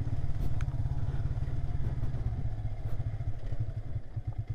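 Motorcycle engine running at low revs while riding slowly over a rough gravel dirt track, with a few short clatters from the bike going over stones.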